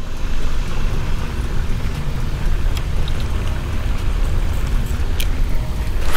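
Wind buffeting an action-camera microphone: a gusty low rumble with crackling noise, with a few faint clicks.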